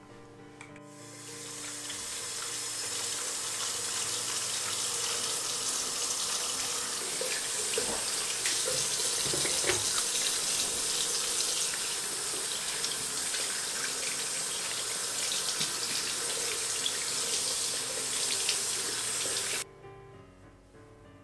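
Water running from a tap, splashing unevenly; it fades in over the first couple of seconds and cuts off abruptly near the end. Soft background music plays underneath.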